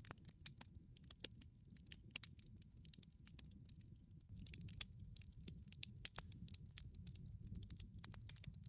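Campfire crackling softly: irregular sharp pops and snaps, several a second, over a faint low rumble.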